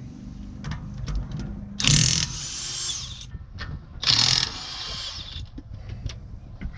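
DeWalt cordless impact wrench run in two short bursts about two seconds apart, hammering lug nuts loose on a car wheel, with light clicks and clinks of the socket and nuts in between.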